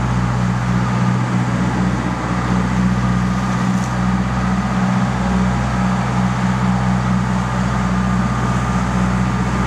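Sportfishing boat's engine running at a steady trolling speed, an even low drone, with the rush of water from the wake.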